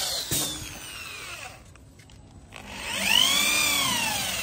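Corded electric drill boring a stopped hole in laminated board with a dedicated bit: the motor winds down over the first second and a half. After a short pause it spins up and back down again.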